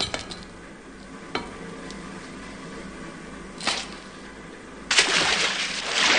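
Cartoon sound effects: a couple of light clicks, a short whoosh a little past halfway, then a loud rush of splashing water near the end as divers burst up out of the water.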